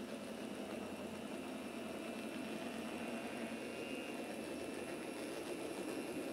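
Electric motor of an N scale CN diesel locomotive model whirring steadily as it pulls grain hoppers past, with the small wheels running on the track, growing slightly louder as the train comes closer.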